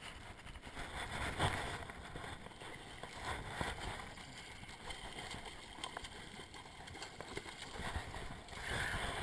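A hooked sockeye salmon splashing at the water's surface beside the boat while being played on a fly line: a few irregular splashes over a steady wash of water and wind.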